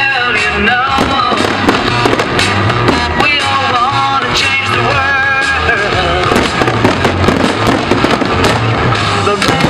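Fireworks bursting and crackling, with many sharp bangs, over loud music with a steady beat.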